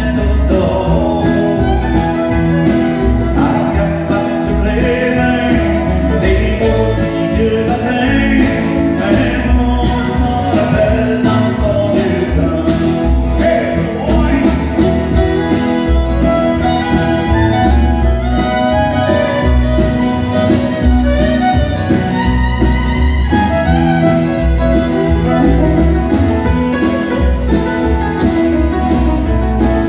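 Live country music from a band of strummed acoustic guitars with a fiddle playing over them, with a steady beat.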